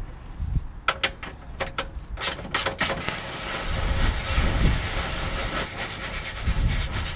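Metal clicks and knocks from about a second in, then a few seconds of steady rasping, scraping noise, as a control arm bolt is worked into the car body's threaded mount.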